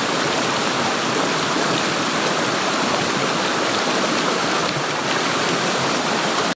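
Water gurgling and running steadily, like a flowing stream.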